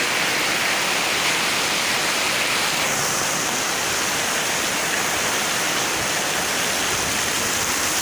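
Rain falling steadily: a constant hiss of rain and running water that turns brighter about three seconds in.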